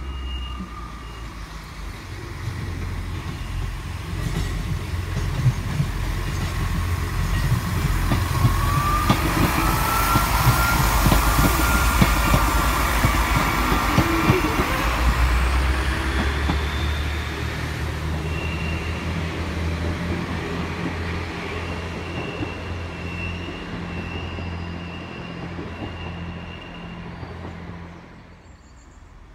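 Northern Sprinter diesel multiple unit passing close by. The rumble of its underfloor diesel engines and the clatter of its wheels on the track swell to a peak mid-pass, then die away. A high squeal is held for several seconds as it goes by.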